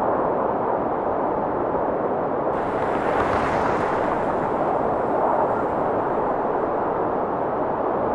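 Blizzard wind blowing steadily, a constant rushing roar of noise with no distinct tones or knocks.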